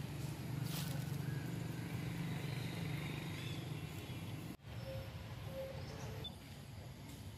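Outdoor background: a steady low hum with faint chirps and a click about a second in. The sound cuts out for an instant a little past halfway.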